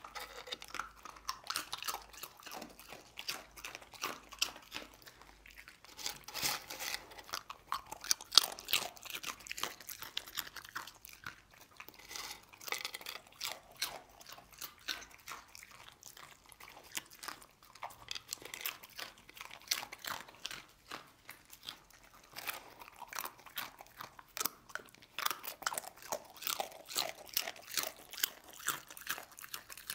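A dog crunching and chewing corn tortilla chips: quick, irregular crunches in runs, with a quieter spell about halfway through.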